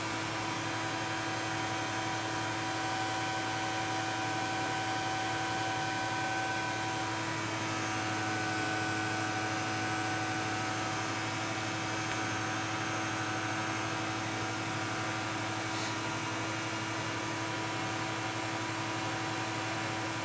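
Steady machine hum with a hiss under it and several steady tones, unchanging throughout.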